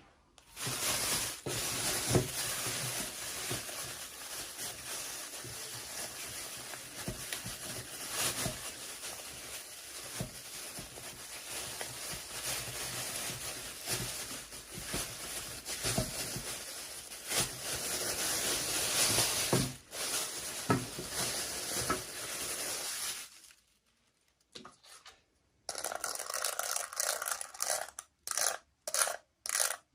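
Packaging being handled and torn open: continuous crinkling and rustling with small clicks, which stops about 23 seconds in, then comes back near the end as short choppy bursts.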